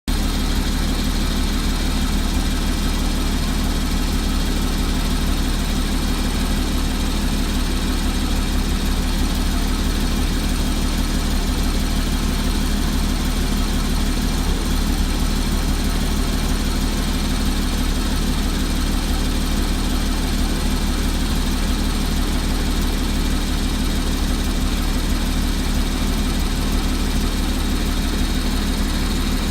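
2014 Porsche Cayman's flat-six engine running steadily at idle, with a ticking sound from the engine that the owner noticed at 34,000 miles.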